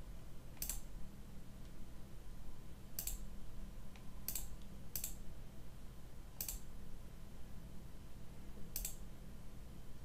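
Computer mouse clicking: six single clicks, spaced irregularly a second or more apart, over a faint low hum.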